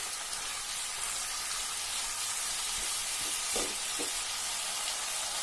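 Mixed vegetables sizzling in oil in a wok as a spatula stirs them: a steady frying hiss.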